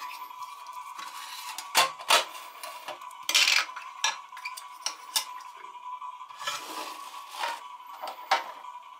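A metal tin pencil case and small plastic sharpeners and an eraser being handled and set down on a marble slab: a string of sharp clicks and clinks, the loudest pair about two seconds in as the tin is shut, with a short scraping rustle just after three seconds and another around six and a half seconds. A faint steady high tone runs underneath.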